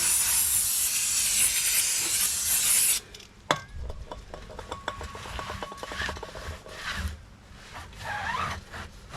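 Cleaning of a wheel rim's tyre bead seat: a loud, harsh hissing rasp for about three seconds that stops abruptly, followed by quieter scrapes and knocks on the rim.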